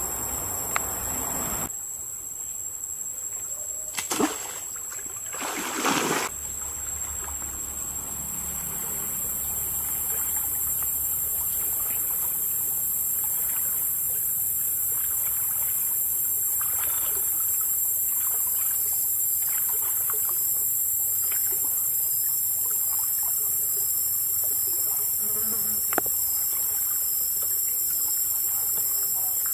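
Shallow stream water trickling and lapping around a wading man's legs, with two brief splashes about four and six seconds in. A steady high insect buzz runs over the water.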